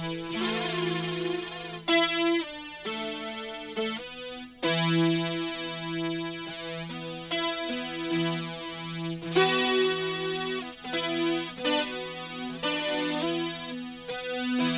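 Electric guitar played through a Boss SY-200 synthesizer pedal set to one of its lead variations, giving a keyboard-like synth lead tone: a run of sustained notes, each held a second or two before the next sharp attack.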